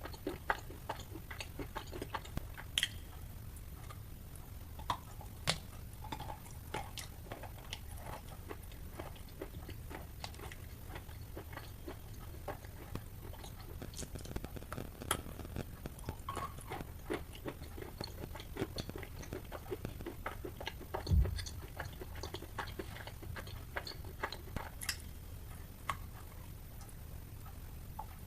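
Wet chalk being bitten and chewed close to the microphone: soft, irregular crunches and moist clicks throughout, with one dull thump about three-quarters of the way through.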